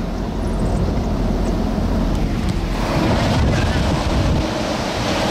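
Strong wind rushing over the microphone on top of the rumble of a moving vehicle, the wind noise growing stronger about three seconds in.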